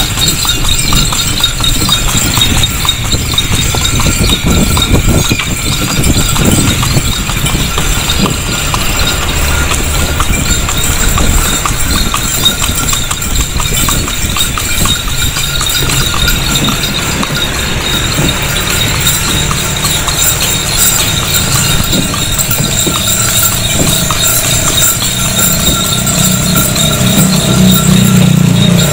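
Horse's hooves clip-clopping steadily on the road as it pulls a cart. About three-quarters of the way through, a deeper steady hum joins in and becomes the loudest sound.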